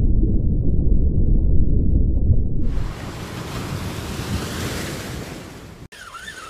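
Loud, muffled rumble of water heard from a camera held underwater. About two and a half seconds in, the camera comes out of the water and the sound opens suddenly into a hiss of surf and wind on the microphone, which fades gradually. It cuts off abruptly near the end.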